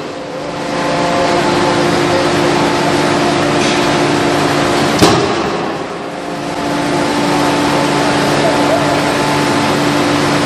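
Steady machine hum of a 5-ton electro-hydraulic close-die forging hammer. About halfway through, the ram strikes the hot blade forging in the die once with a sharp, heavy blow.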